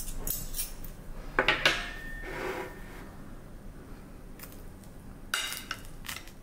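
Metal spoon clinking and scraping against a ceramic plate: a few short clinks, the loudest about a second and a half in with a brief ringing, and two more near the end.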